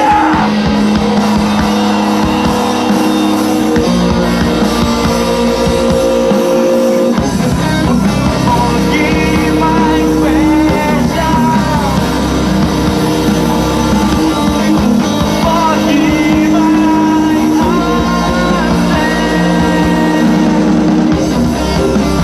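Alternative rock band playing live: electric guitars and bass with a singer's voice over them, loud and steady.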